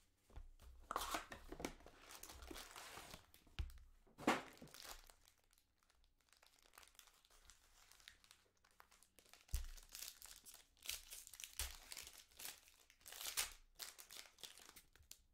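Foil wrappers of 2020 Panini Prizm football hobby packs crinkling and tearing as the packs are handled and ripped open. The sound comes in irregular bursts, with a quieter stretch in the middle.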